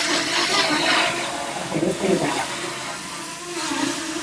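Strong gusty wind rushing over the microphone, with the buzz of a DJI Mini 2 drone's propellers underneath, fading as the wind carries the drone away.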